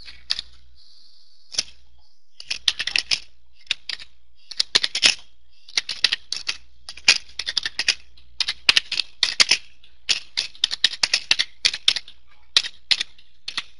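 Computer keyboard being typed on in quick runs of keystrokes, with short pauses between the runs.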